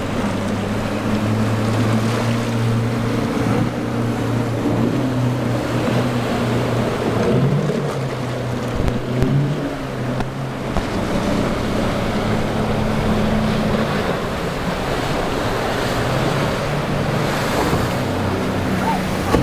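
Outboard boat motors running under throttle, their hum shifting in pitch as the boats work through the waves, over the steady rush of surf and churning wake water.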